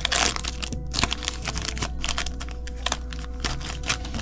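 Foil Yu-Gi-Oh booster pack wrapper crinkling and crackling in irregular bursts as the pack is torn open and the cards are pulled out, over a steady low hum.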